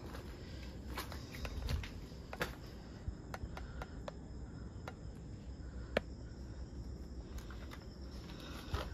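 Crickets chirping steadily in the background, with scattered footsteps crunching and clicking over broken floor tiles and rubble; the sharpest click comes about six seconds in.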